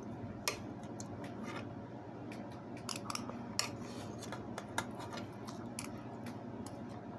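A spoon clicking and scraping against a rice cooker's inner pot as rice is scooped, a string of short, irregular taps over a steady low background hum.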